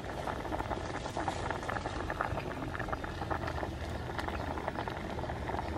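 Crab and papaya soup boiling hard in a large aluminium pot: a steady bubbling with many small pops.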